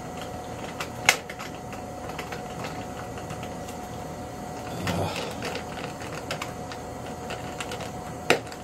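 Handling noise as a foam RC jet's wing is pushed and wedged onto its fuselage: light clicks and creaks throughout, a sharp knock about a second in, a duller thump around five seconds, and another sharp knock near the end.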